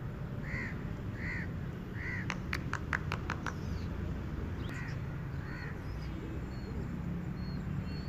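Crows cawing: three calls in the first couple of seconds, then a quick run of clicks, then two fainter caws, over a steady low rumble.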